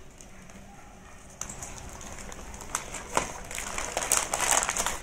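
Cardboard box being handled and opened: scraping and rustling of cardboard with sharp clicks and taps, starting about a second and a half in and growing louder near the end.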